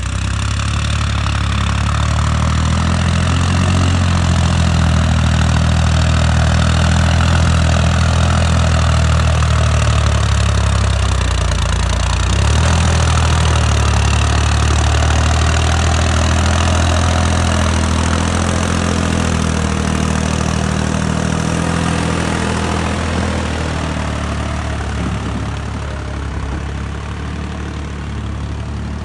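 Farmtrac 60 EPI tractor's three-cylinder diesel engine running steadily while hauling a heavily loaded trolley. Its pitch dips briefly about ten seconds in and then recovers, and it grows a little quieter near the end.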